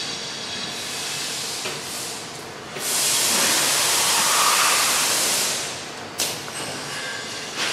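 Pasquato TTP sheeter running a cut with its safety guard closed: a loud, steady hiss for about three seconds, ending in a sharp click.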